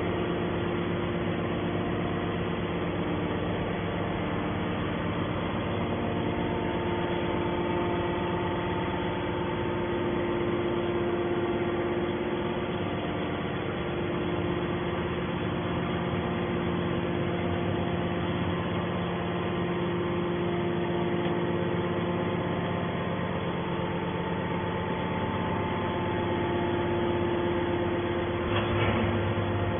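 Scrap metal baler's hydraulic power unit running steadily: a constant machine hum made of several steady tones.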